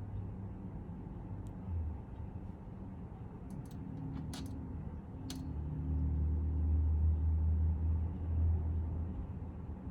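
Golden retriever snoring in its sleep: a short low snore a little under two seconds in, then a longer, louder low snore lasting about three seconds past the middle.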